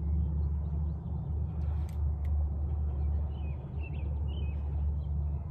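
Steady low rumble on the microphone, with a few faint bird chirps about three to four seconds in.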